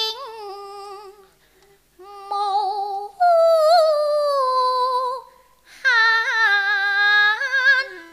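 A woman singing a Cantonese opera song in three long, drawn-out phrases with wide vibrato and short breaks between them, with almost no accompaniment heard under the voice.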